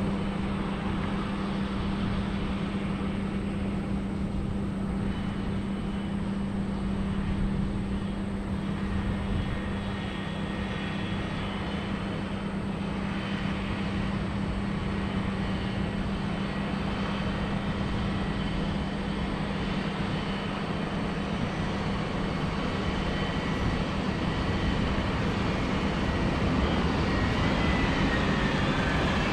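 Diesel engine of heavy harvest machinery running steadily under load, a constant low drone with a faint higher whine that rises near the end.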